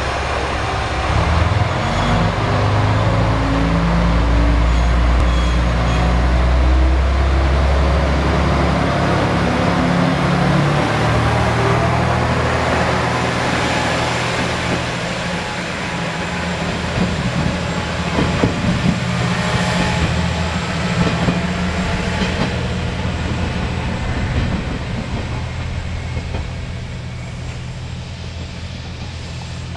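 KiHa 120 diesel railcar pulling away from a station. Its diesel engine revs up in rising steps as it accelerates, then the car passes close by with clicking from the wheels on the rails. The sound fades as it moves off.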